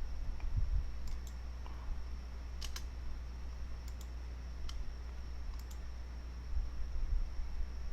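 A handful of sharp, light clicks spaced irregularly, the loudest a quick double click a little under three seconds in, with a few low thumps near the start and near the end.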